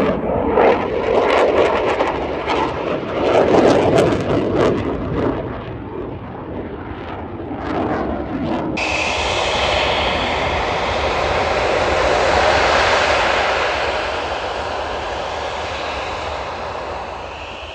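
Fighter jet engines. For the first half, a jet in display flight makes a rough, crackling noise. After a cut about nine seconds in, a Turkish Air Force F-16 on the runway gives a steady jet noise with a high whine, which swells and then fades as it passes.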